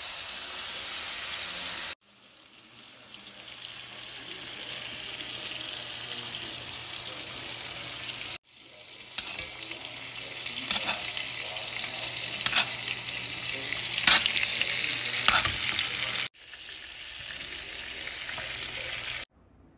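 Wagyu ribeye steak searing in hot avocado oil in a skillet: a steady sizzle with many sharp spitting pops, thickest in the middle and latter part, as the oil and later butter and rosemary fry around the meat. The sizzle breaks off and restarts abruptly several times.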